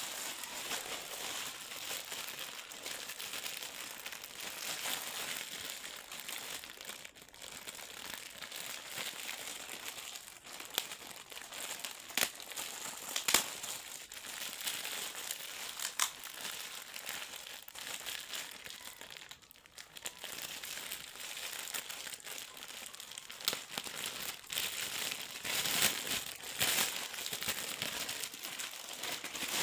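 Packaging around a new backpack being unwrapped by hand, crinkling and rustling continuously. A few sharp snaps come in the middle, and the crinkling gets louder near the end.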